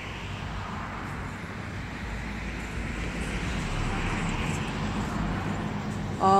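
Road traffic noise from a passing vehicle, a steady tyre-and-engine hiss with a low rumble that swells over the first four seconds. Right at the end a loud, long, wavering voiced note begins.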